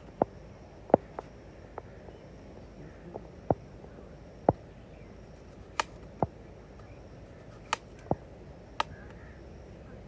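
A knife chopping on a cutting board: about a dozen sharp, irregularly spaced knocks, over a steady low background.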